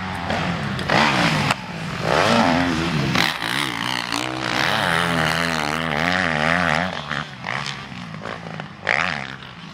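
Motocross dirt bike engines revving hard, their pitch rising and falling as the riders work the throttle over the track's jumps, with a short louder rev about nine seconds in.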